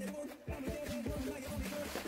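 Background music with a steady beat and a bass line under a simple melody.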